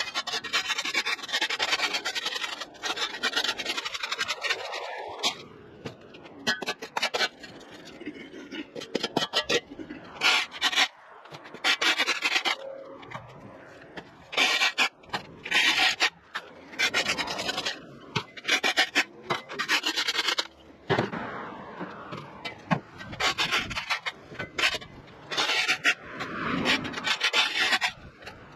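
Repeated rough scraping strokes over a hard surface, each lasting a second or so, with short breaks between them.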